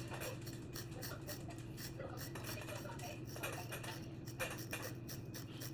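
Bore brush scrubbing through a Glock 48 pistol barrel: irregular scratchy strokes and small clicks over a steady low hum.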